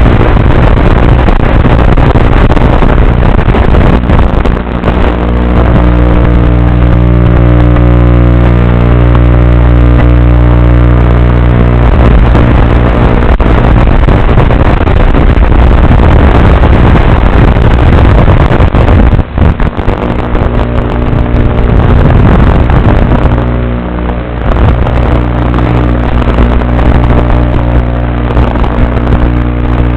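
Blade Nano QX micro quadcopter's brushed motors and propellers buzzing loudly as heard on board, a steady hum of evenly spaced tones over a noisy rush. The sound dips briefly about 19 seconds in and again near 24 seconds.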